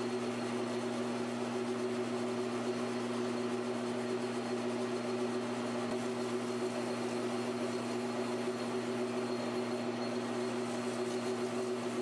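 Precision Matthews PM1236T metal lathe running at a steady speed, a constant hum with a couple of held tones, while a titanium ring on an arbor is hand-finished against the spinning chuck.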